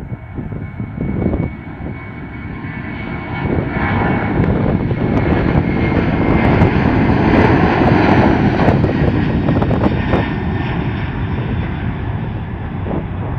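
Boeing 767-300ER's twin turbofan engines at takeoff thrust during the takeoff roll: a loud rushing jet noise with a steady high whine over it, building as the jet passes and loudest about halfway through, then easing a little as it rotates near the end.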